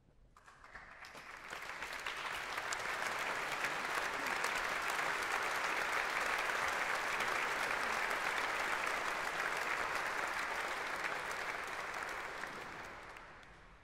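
Concert audience applauding, building up over the first two seconds, holding steady and dying away near the end: the welcome for the conductor as he comes on before the piece begins.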